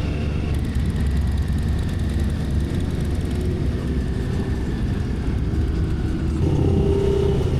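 Motorcycle engine running steadily at riding speed, with wind rushing over the microphone and other motorcycles in convoy; an engine note grows louder near the end.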